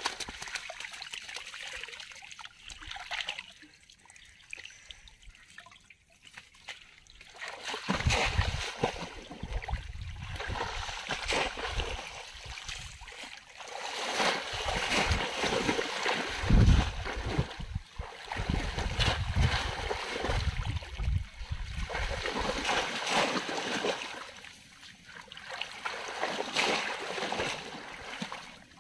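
Shallow water splashing, sloshing and trickling as bamboo polo fish traps are plunged into the water and mud and lifted out dripping. Irregular low thuds and rumbles come through the middle stretch.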